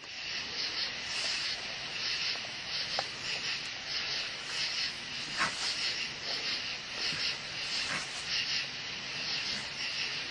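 Insects chirping in a fast, even pulsing rhythm, with a couple of faint knocks.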